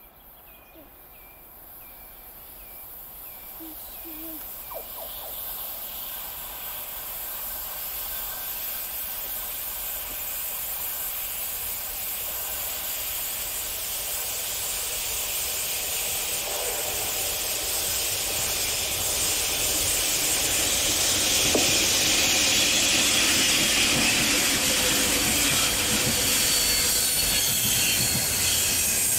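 A freight train hauled by a VL80-series electric locomotive approaches and passes close by. Its rumble and wheel-on-rail noise grow steadily louder for about twenty seconds, then stay loud as the locomotive and container wagons roll past, with a high hiss and some wheel squeal on the curve.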